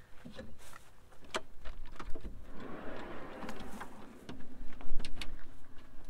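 A chest fridge being pulled out of a wagon's rear drawer system on its fridge slide: a series of clicks and knocks from the latch and slide, a rolling rumble in the middle as the slide runs out, and the loudest knocks near the end as it reaches full extension.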